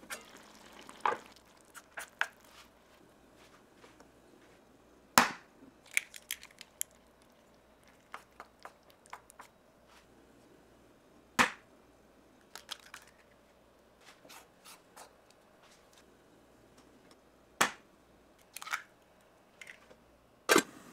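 Eggs cracked sharply against a pan three times, each crack followed by a few small clicks as the shell is pulled apart. Near the end a metal lid is set down on the copper pan with a clink.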